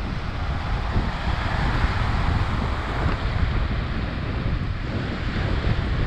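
Wind buffeting the microphone in a steady low rumble, with lake waves washing on the shore behind it.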